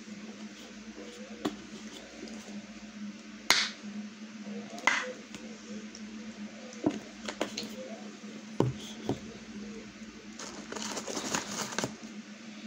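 Handling noises at a table: scattered sharp clicks and knocks from a cup and a plastic ketchup squeeze bottle, the loudest a few seconds in, then a short stretch of rustling near the end, over a steady low hum.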